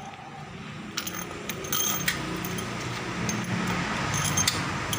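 Light metallic clinks and taps from hand tools and engine parts being handled, a few scattered through the stretch, over a steady background rumble.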